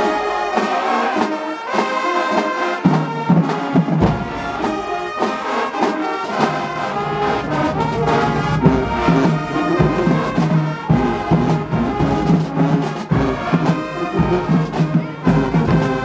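Marching band playing a stand tune in the bleachers: loud brass with trombones, trumpets and sousaphones, over repeated drum hits.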